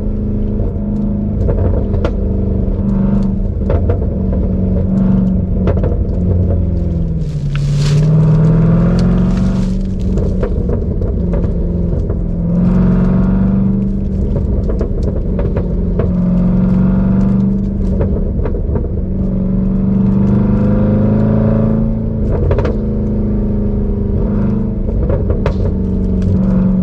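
Supercharged 6.2-litre HEMI V8 of a Jeep Grand Cherokee Trackhawk running through a GtHaus Meisterschaft exhaust, heard from inside the cabin while driving, its note swelling several times as it accelerates and easing off between. Scattered sharp exhaust pops cut through the drone.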